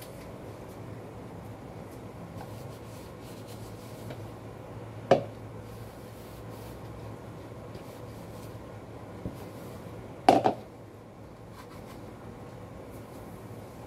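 Kitchenware being handled on a counter: a sharp knock about five seconds in, then a louder double knock about ten seconds in as a plastic mixing bowl is set down, over a steady low hum.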